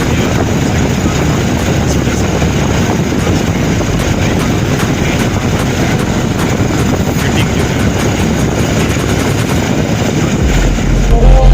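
Loud, steady rumble of a vehicle on the move, with wind noise on the microphone. Music comes in near the end.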